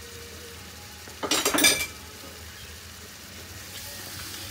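Wooden spoon stirring a thick curry sauce in a metal frying pan, with a short burst of knocks and scrapes against the pan about a second in, over a faint steady simmer.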